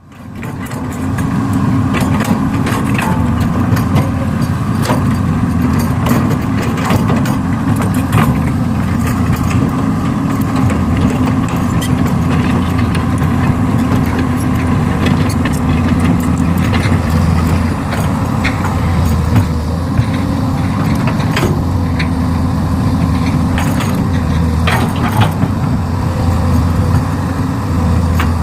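Heavy diesel earthmoving machinery running steadily as an excavator loads soil into a dump truck, fading in over the first second. Scattered knocks and clanks sound over the engine throughout.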